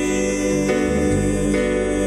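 Music with held chords that change about two-thirds of a second in and again near the end.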